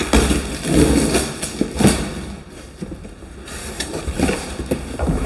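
Cardboard shipping box being opened: the tape on top cut and the flaps pulled open, with irregular scraping and rustling of cardboard and a sharp knock about two seconds in.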